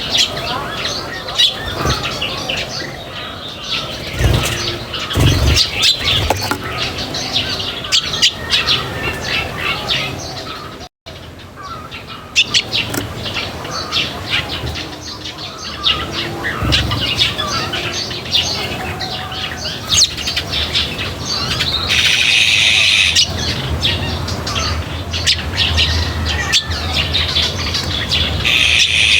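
Small birds chirping continuously, many short rapid calls overlapping, with a momentary break about eleven seconds in.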